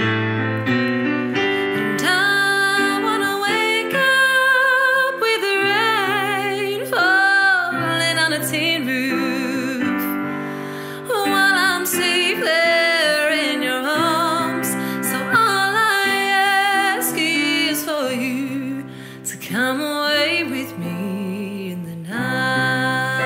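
A woman singing long held notes with vibrato over piano accompaniment.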